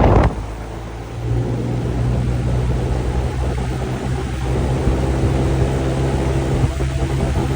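QuietCool whole-house fan running with a steady low hum. A short loud noisy burst at the very start, then the sound dips and builds back up to a steady level about a second in.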